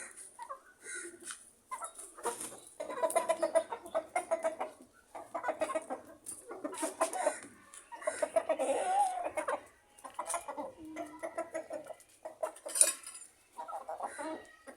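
Chickens clucking in repeated runs of short, stuttering calls with brief pauses between them, and one sharp click near the end.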